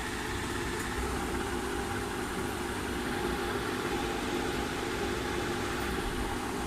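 Steady machine hum over an even hiss, unchanging throughout.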